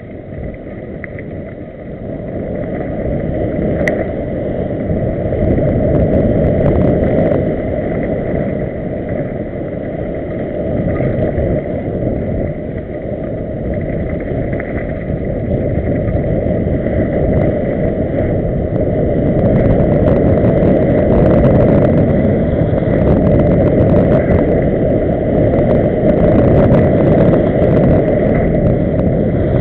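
Heavy wind buffeting on a small camera microphone and the rumble and rattle of riding down a rough dirt trail, getting louder over the first few seconds as speed picks up, with a faint steady high whine underneath.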